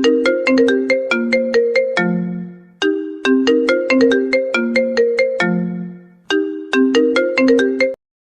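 Smartphone ringtone: a short melody of quick, struck, mallet-like notes that ends on a lower held note, repeated about every three and a half seconds. It cuts off abruptly near the end.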